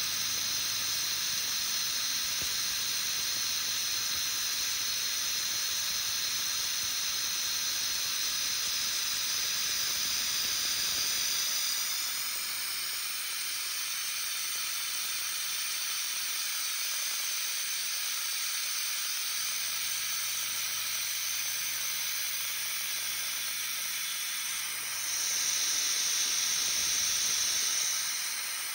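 Steady hiss of a nozzle blowing onto an end mill as it rough-mills a pocket in metal plate, with a faint low machine hum that comes and goes. The hiss grows louder for a few seconds near the end.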